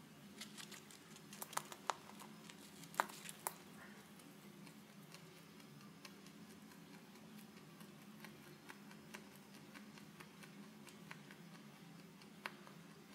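Rabbit chewing and nibbling alfalfa hay stalks: crisp snapping crunches, a quick run of louder ones in the first few seconds, then sparse faint clicks with one more snap near the end.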